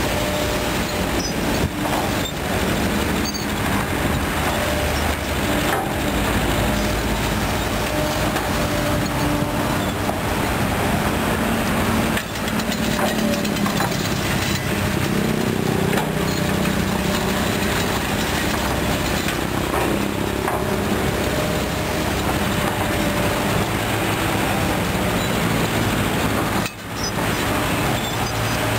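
Kobelco SK200 excavator's diesel engine running steadily under working load, with a thin hydraulic whine and occasional clanks as the bucket digs and spreads loose soil. The engine note rises and thickens about halfway through as the load comes on.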